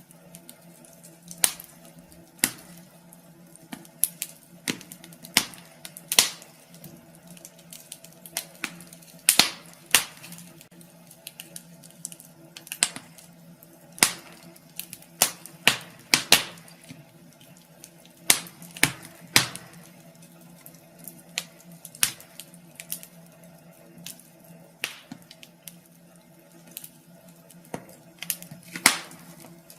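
Wood fire in a fireplace crackling, with irregular sharp pops and snaps, some much louder than others, over a faint steady low hum.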